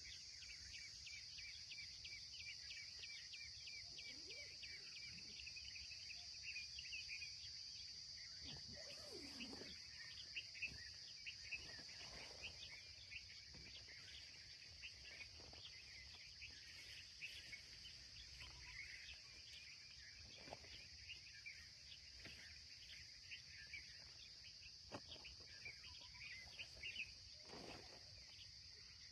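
Faint outdoor ambience of an insect chorus: a steady high trill of crickets with many scattered chirps over it, and a few soft low sounds now and then.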